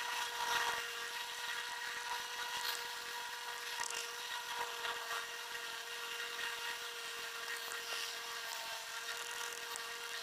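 Thin steel pick scraping and picking inside the end of a steel hex bit, a faint irregular scratching, over a steady high hum.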